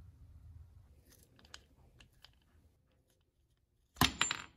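Small metal parts of a vintage Stanley egg beater hand drill handled with a few light clicks, then a quick clatter of metal pieces against the wooden workbench near the end, with a brief metallic ring.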